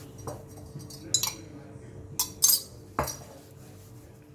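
Kitchen utensils clinking against each other or a vessel: about five sharp clinks at uneven intervals, the loudest about two and a half seconds in.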